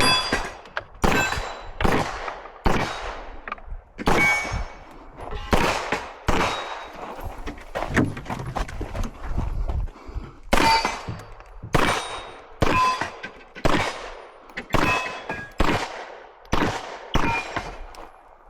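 Pistol shots from a 9mm CZ Shadow 2 fired in quick strings with a short pause about halfway through, several hits followed by the clang and brief ringing of steel targets.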